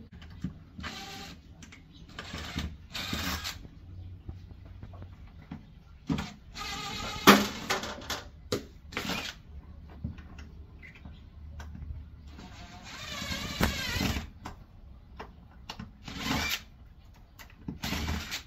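Cordless drill-driver running in short bursts, its motor whining up and down as it backs out the screws holding an old porch light fixture to the wall.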